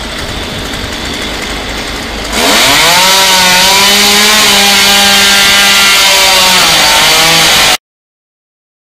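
Chainsaw starting up about two and a half seconds in, rising quickly to full throttle and running at a steady high pitch, over street background noise. It cuts off suddenly near the end.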